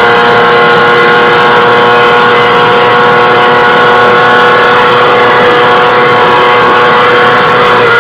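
Yamaha YZF-R6 inline-four engine at high revs, recorded on board, holding a steady high-pitched note that sags only slightly in pitch.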